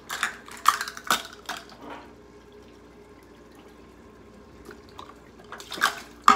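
Chicken broth handled and poured: a few knocks and clicks of the carton and cup, a quiet pour into a measuring cup, then near the end a louder splash as the cup of broth is tipped into the Instant Pot's steel inner pot.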